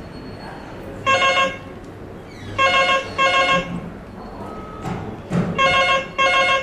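Desk telephone ringing with a steady tone in short rings: one ring about a second in, then two double rings.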